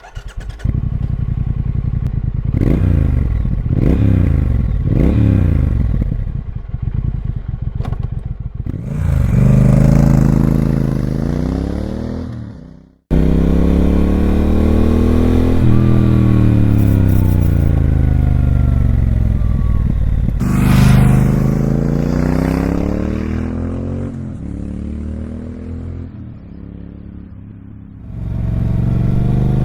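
2019 Triumph Speed Twin 1200's 1200cc parallel-twin engine running through its standard twin mufflers while riding. Short quick rises and drops in pitch come first; after a sudden cut about 13 seconds in, there are long accelerations and decelerations.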